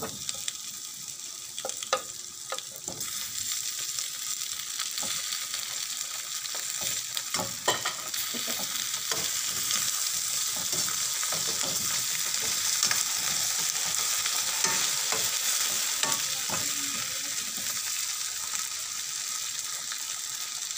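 Oil sizzling in a stainless steel pan as potato slices go in among frying garlic and onions, with a metal spoon stirring and a few sharp knocks against the pan. The sizzle builds over the first few seconds and then holds steady.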